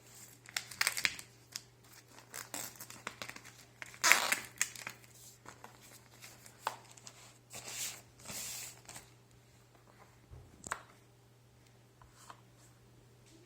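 Packaging of a bathroom scale being handled and opened: irregular tearing, crinkling and rustling, loudest about four seconds in, then thinning to a few light clicks near the end.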